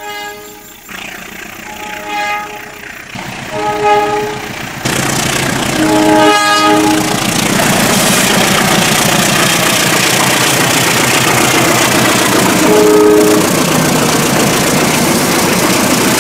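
CC 204 diesel-electric locomotive sounding its horn in five blasts, the longest around six seconds in and the last near the end. From about five seconds in, the locomotive's engine and the wagons rolling close by make a loud, steady rumble under the horn.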